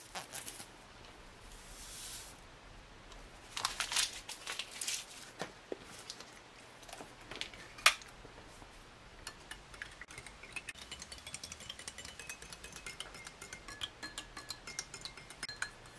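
A plastic spoon stirring creamer and sugar into hot tea in a glass: a long run of rapid light ticks and clinks against the glass in the second half, after scattered rustles and clicks as the creamer and sugar go in.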